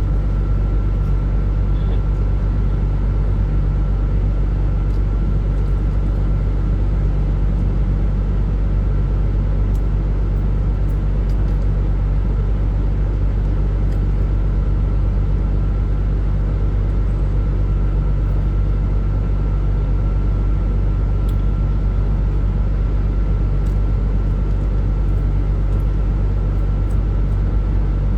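Vehicle engine idling inside the cab: a steady, unchanging low hum, with a few faint clicks.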